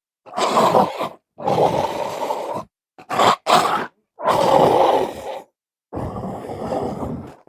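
An animal's growls and barks played one after another with silence between: long, rough growls of about a second each, and two short barks in quick succession near the middle.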